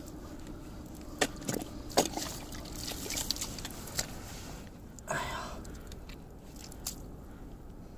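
A shovel digging into wet tidal mud after a burrowing clam: several short, sharp strikes and scrapes of the blade, and a longer wet squelch about five seconds in.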